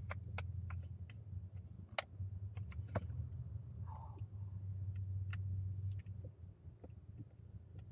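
Car engine running, heard from inside the cabin as a steady low hum, with irregular sharp clicks scattered over it.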